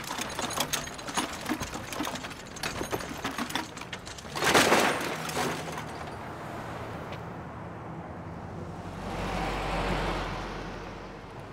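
Scrap metal clicking and clattering in quick irregular knocks, then a short loud rush of noise about four and a half seconds in. Near the end a vehicle passes with a low rumble that swells and fades.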